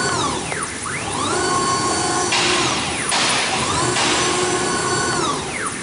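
A double-spindle 1325 CNC router's axis drive motors whine as the gantry makes rapid moves. With each of about three moves the pitch rises as it speeds up, holds steady, then falls as it slows. A hiss joins in the middle for about a second and a half.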